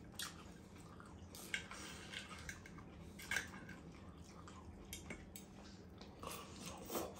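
Knife and fork cutting sirloin steak on a plate, with a few scattered sharp clicks, then a bite of steak being chewed near the end.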